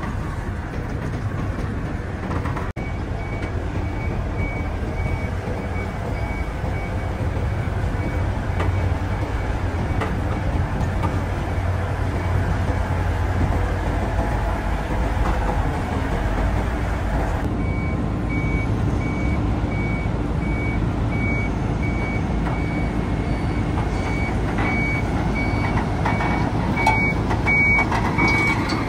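Diesel engine of a Grove TM1500 hydraulic truck crane running steadily with a deep rumble. A rapid electronic warning beeper sounds over it, starting about three seconds in, pausing through the middle and coming back for the last ten seconds or so.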